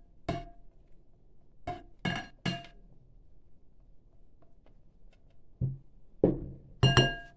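Ceramic dishes clinking and knocking as a plate of spice powder is tapped and scraped over a ceramic bowl of chicken. About seven separate clinks, several with a short ring, come in two groups with a quiet gap between them, and the loudest clink is near the end.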